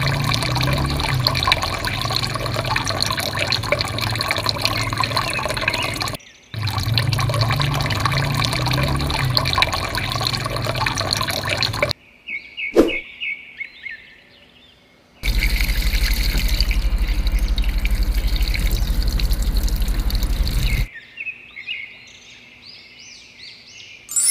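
A stream of thick liquid paint pouring and splattering, in three long stretches. In the quieter gaps between them birds chirp, and a short sharp sound comes right at the end.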